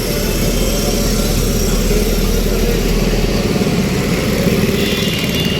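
Road traffic: the engines of motorcycles and cars run close by in a steady, loud rumble with a fast pulsing beat.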